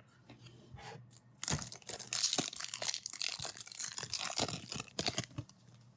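Foil wrapper of a trading-card pack crinkling and tearing as it is ripped open: a dense stretch of crackly noise starting about a second and a half in and lasting about four seconds.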